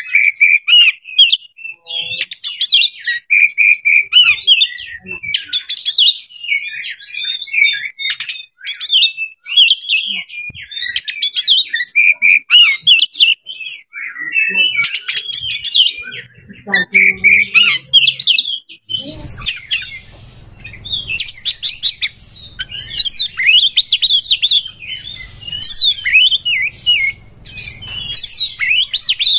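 Oriental magpie-robin singing a long, varied song of quick whistled phrases, trills and chirps, with only brief pauses.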